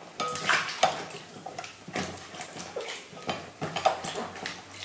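Glass bowls and dishes clinking and knocking on a stone countertop as washed lemons are handled, in short irregular knocks.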